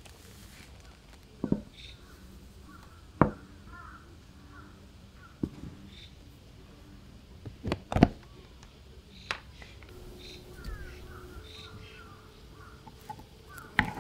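Kitchen containers being handled: a handful of sharp, separate clicks and clacks, the loudest pair about eight seconds in as a clear plastic lid is pulled off a container of risen dough. Faint bird calls chirp in the background.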